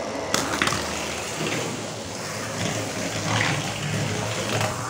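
Small motorised toy car driven by a mini DC motor, running along a track with a whirring, rattling noise; it starts suddenly.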